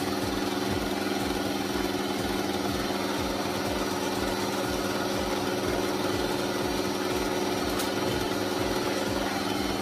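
Electric stand mixer running steadily, a continuous motor hum as its twin beaters whip egg whites and caster sugar into meringue.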